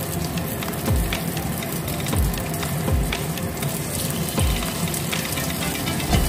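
Oil sizzling steadily as raw chicken wings fry in a wok, with background music whose low beat comes about once a second.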